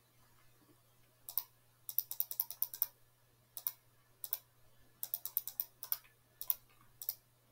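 Quick clicking at a computer, in short bursts of several clicks in a row, the longest run about a second, with single clicks between. A faint steady low hum lies under it.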